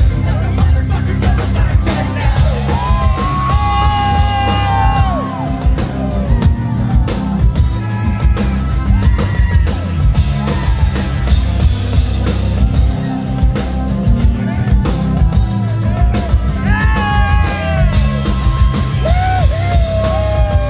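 Rock band playing live, a male lead singer holding long notes over electric guitar, keyboards and drums with a steady beat.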